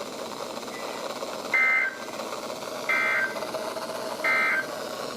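Three short bursts of EAS SAME digital data tones from a weather radio, evenly spaced about 1.4 seconds apart, each a brief warbling two-tone chirp. These are the End of Message code that closes the severe thunderstorm warning broadcast. A steady radio static hiss runs underneath.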